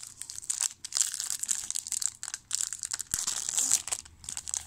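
Plastic wrapper of a trading card pack crinkling and tearing as hands rip it open, a dense run of fast crackles with one sharp snap about three seconds in.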